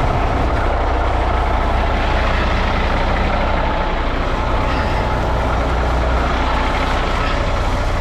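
Heavy diesel semi-truck engine, a Cummins X15, idling steadily with a deep, even low hum.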